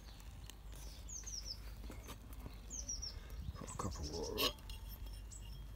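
A small songbird singing twice: short phrases of quick, high, descending chirps. A brief sharp knock comes about four and a half seconds in.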